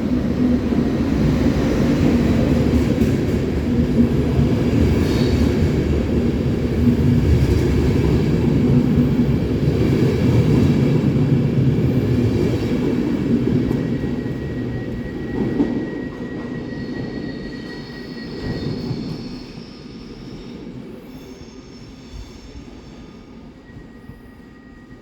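Electric train rolling through the station platform: a loud low rumble of wheels and motors that fades over the second half. High steady squeals from wheels or brakes come in as it slows or draws away.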